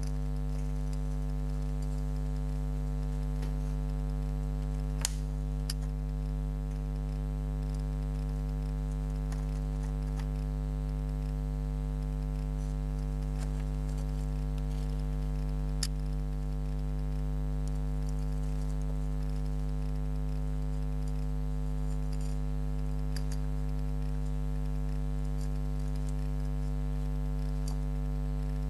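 Steady low electrical hum, with a few sharp clicks scattered at irregular, slow intervals, likely from the homemade Geiger counter's small speaker as it counts. The two loudest clicks come about five seconds in and about sixteen seconds in.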